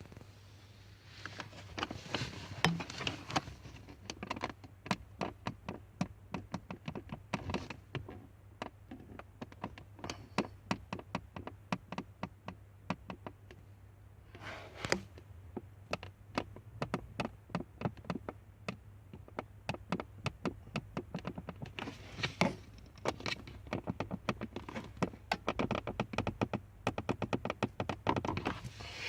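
Lada Vesta cabin heater creaking: a long run of short, sharp clicks and ticks, coming in dense irregular bursts, over a steady low hum.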